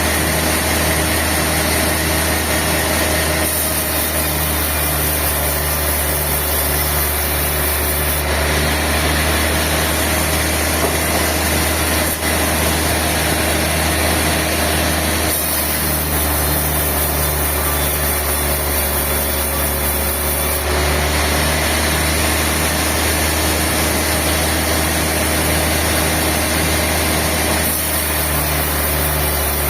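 Sawmill machinery running steadily: a loud engine-like drone with a low hum and a pulsing undertone, its character shifting abruptly every few seconds.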